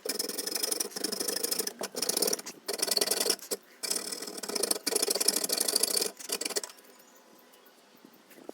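Hand tool working wood in a series of rough back-and-forth strokes, about five of them, which stop about six and a half seconds in.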